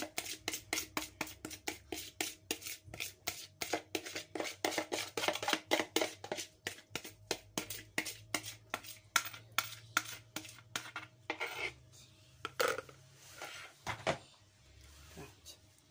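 Spoon scraping and tapping rapidly against a plastic bowl, about four strokes a second, as sauce is spooned out. The strokes thin to a few scattered knocks near the end.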